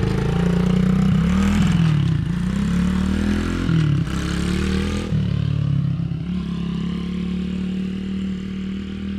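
Small vehicle engine being ridden, its pitch rising and falling several times, then holding steadier and slowly growing fainter.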